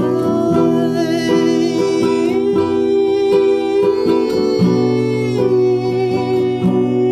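Acoustic guitar strummed in a steady rhythm under a wordless hummed vocal melody of long held notes that glide slowly from one pitch to the next.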